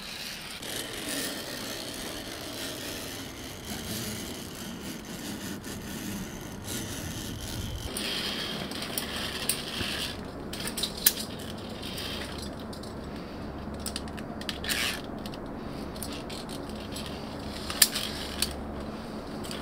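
Scattered metallic clicks and rattling of carabiners and climbing gear being handled and clipped, over a steady low background noise.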